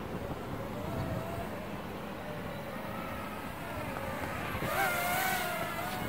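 Parrot Swing mini drone's electric motors and propellers whining in flight, the pitch wavering as it is pushed around by gusty wind, and louder about five seconds in as it comes closer. Wind rumbles on the microphone underneath.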